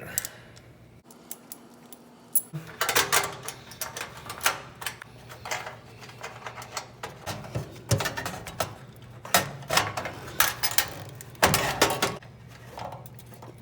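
Small metal parts and hand tools clinking and clattering as they are handled, in irregular clusters of sharp clicks that start after a quiet opening couple of seconds, over a low steady hum.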